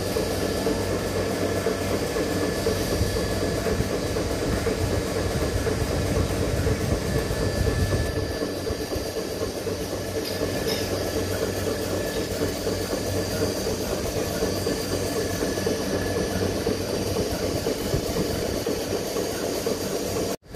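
DeLaval machine-milking parlour in operation: the milking machines' vacuum system running with a steady mechanical hum. The sound drops out for a moment near the end.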